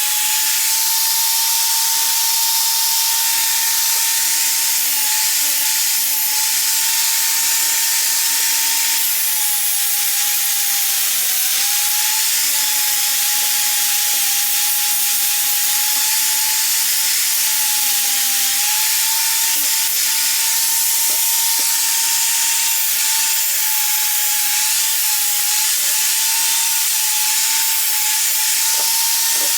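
Electric drill running continuously with a 120-grit sanding disc, grinding rust off a steel door hinge. The motor's steady whine over a gritty hiss dips slightly in pitch a few times under load, around 11 and 18 seconds in.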